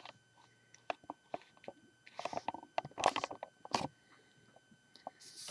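Handling noise from a plastic Lego model: a scattered run of soft clicks and taps at irregular times, with faint rustling between them.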